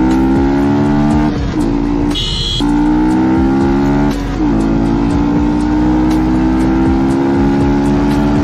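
Yamaha R15's single-cylinder engine running loud through its exhaust, accelerating through the gears: the pitch climbs steadily and drops briefly at each upshift, about one and a half and four seconds in. A brief high-pitched tone sounds about two seconds in.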